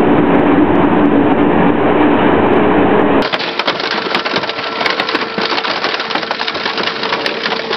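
Industrial shredders tearing up cars: a dense grinding crunch over a steady machine hum. About three seconds in it cuts to a twin-shaft shredder's cutters breaking up a sedan, with many sharp cracks and snaps of tearing metal over a higher steady hum.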